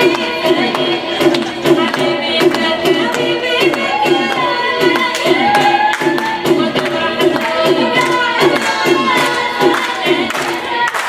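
Music with a singing voice and a steady beat, played over loudspeakers.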